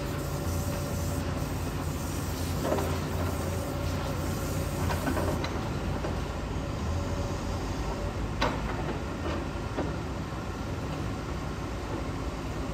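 Hitachi ZAXIS 210K hydraulic excavator running: a steady low diesel rumble, with a few sharp metal clanks.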